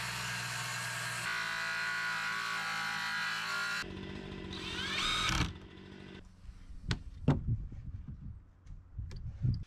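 Cordless power saw running as it cuts through a wall of one-inch chainsaw-milled boards, stopping about four seconds in. A cordless drill then runs briefly, its whine rising, followed by several sharp knocks.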